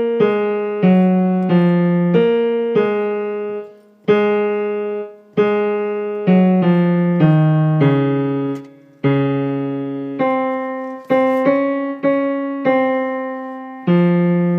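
Piano playing the tenor and bass lines of a choral piece: a steady run of struck two- and three-note chords, each fading before the next, with brief breaks between phrases.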